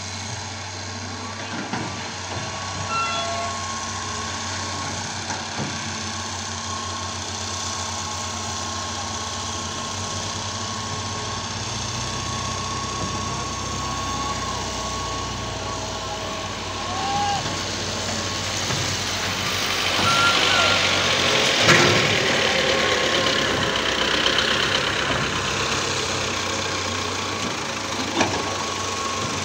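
Diesel engine of a hydraulic excavator running steadily as it digs and loads sand, with a thin steady high tone over the engine hum. There are a few short knocks, and a louder, noisier stretch about two-thirds of the way through.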